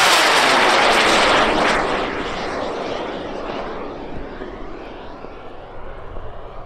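High-power rocket's K270 motor burning at launch: a loud hissing roar that fades steadily as the rocket climbs away, its tone sweeping downward in the first couple of seconds.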